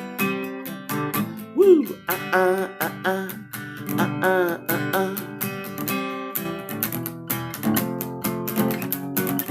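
Acoustic guitar strummed in a steady rhythm through an instrumental break of a rock song, with a short whoop about two seconds in and a line of notes bending up and down in pitch over the strumming.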